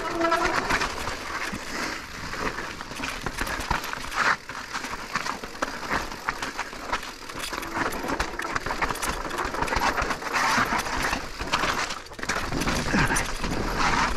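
Electric mountain bike riding over a rough, rocky trail: tyres crunching and the bike rattling over rocks, over a steady rushing noise, with a couple of brief lulls.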